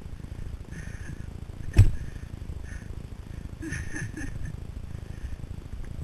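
Low rumbling noise of a vehicle rolling down a rough dirt trail, with one loud knock about two seconds in and short high-pitched squeaks recurring every second or so.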